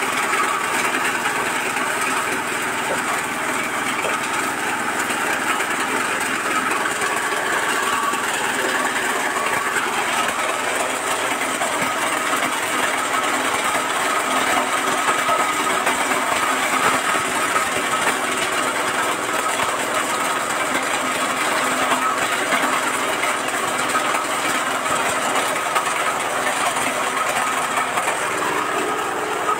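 Engine-driven areca nut cracking machine running steadily, its small engine going with the rattle of nuts being cracked as they are fed through.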